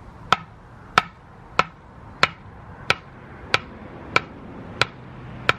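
A row of nine sharp clicks, evenly spaced at about one and a half a second, each with a short ring.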